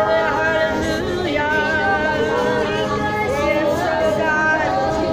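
Worship team singing a Tagalog worship song with musical accompaniment, the voices gliding between long held notes.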